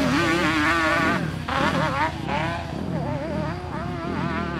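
Engines of a quad ATV and a dirt bike climbing a steep dirt hill at full effort, their pitch wavering up and down as the revs rise and fall.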